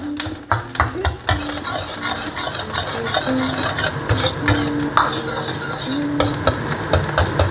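Metal spatula scraping and tapping against a wok in quick, irregular strokes as salted egg yolks sizzle in hot oil, being stir-fried into 'golden sand'.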